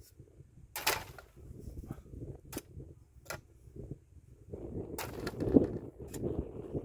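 Spade digging into soil: the blade is pushed in and levered, giving several sharp clicks and knocks and crunching earth, loudest about five seconds in.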